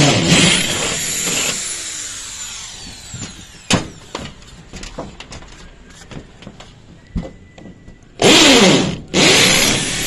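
Electric power drill run in short bursts at full speed: once at the start for about a second and a half, then twice more near the end. After each release the motor winds down with a falling whine.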